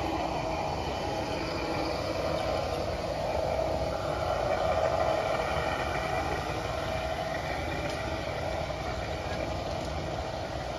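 Large-scale garden-railway model train running along its track, a steady motor hum and wheel rumble that grows louder about halfway through as the train passes close, then eases off.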